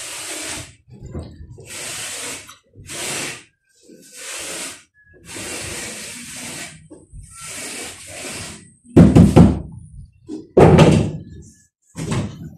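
Trowel scraping cement plaster onto a block wall in repeated strokes, about one a second, then two loud heavy knocks near the end.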